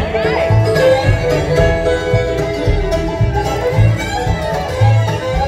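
Live bluegrass band playing an instrumental passage: bowed fiddle over banjo, acoustic guitar and mandolin, with upright bass notes on the beat.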